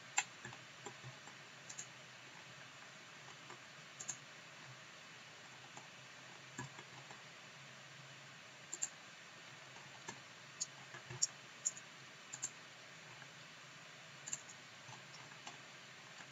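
Computer mouse clicking as edges are picked one by one in CAD software: sharp single clicks and quick pairs at irregular intervals, over a faint steady hum.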